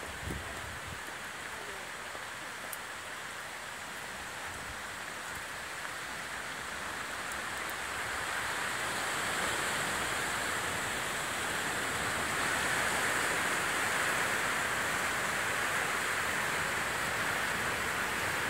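Swollen River Calder in full flood: a steady rush of fast floodwater that grows louder about halfway through, with rain falling.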